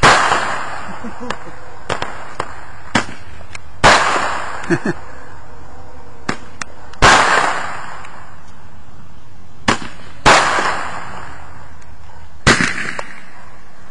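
Fireworks exploding: five loud sharp bangs a few seconds apart, each trailing off in an echo, with smaller cracks in between.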